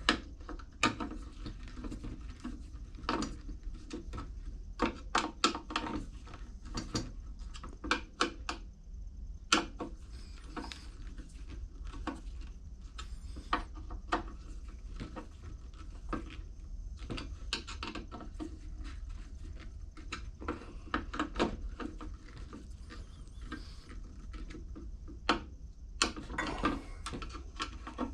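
Irregular clicks and light metallic taps of hand tools working the bolts of a Briggs & Stratton 3.5 hp lawn mower carburetor, snugged up a little at a time, some clicks coming in quick runs. A steady low hum runs underneath.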